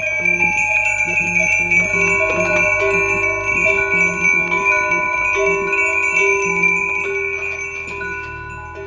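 A string of hand-forged Kachchh bells with wooden clappers ringing together as they swing. Many overlapping tones of different pitches are struck again and again, then die away near the end.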